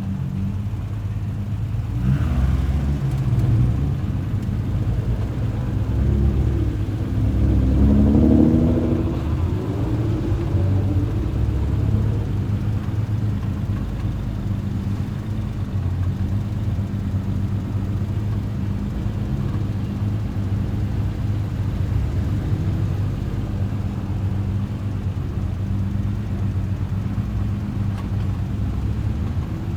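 Nissan GT-R engine idling steadily, with one brief rev that rises and falls about eight seconds in.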